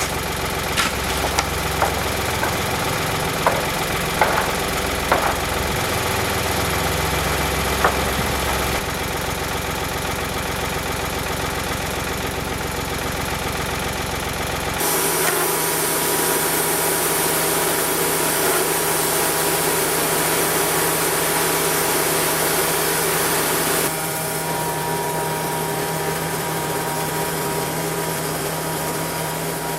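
Portable band sawmill's engine running steadily, with several sharp knocks in the first eight seconds. The sound changes abruptly about halfway through and again near the end.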